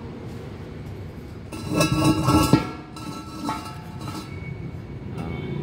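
A loud burst of metallic clanking and ringing, with a couple of smaller clinks after it, over a steady low rumble.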